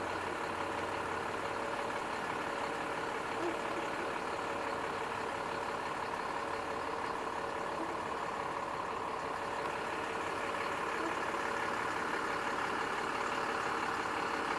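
Steady hum of an engine idling, unchanging throughout.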